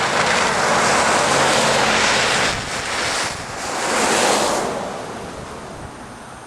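Traffic passing on a snow-covered highway: a loud hiss of tyres that swells twice, the second time peaking about four seconds in, then fades away.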